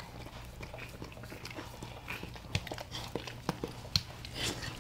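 Cane Corso in labour licking, wet smacking and clicking mouth sounds in short irregular bursts.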